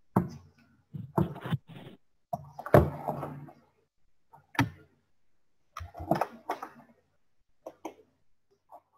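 A scattering of short thumps and knocks mixed with brief muffled voice sounds, heard over an online call's audio. They come irregularly, about half a dozen times, with quiet between.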